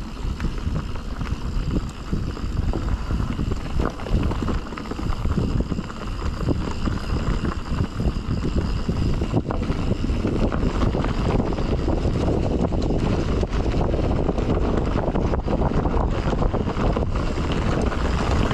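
Mountain bike riding a dirt singletrack trail: wind buffeting the action camera's microphone over the rumble of knobby tyres and frequent clattering knocks from the bike over rough ground, growing a little louder through the run.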